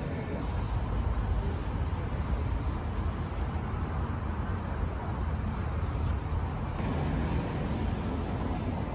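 Steady low outdoor rumble of city and beachfront ambience, changing slightly about half a second in and again near seven seconds.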